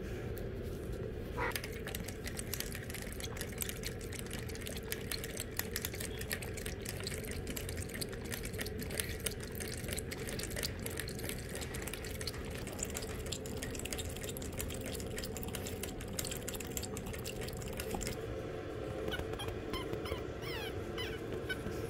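Shih Tzu puppies licking and mouthing the stainless-steel nozzle of a cage water bottle, a fast run of small clicks and wet licking sounds over a steady low hum. A few faint high squeaks come near the end.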